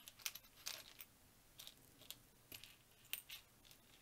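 Small plastic building bricks clicking and rattling against each other as they are picked out and handled: a string of faint, sharp, irregular clicks.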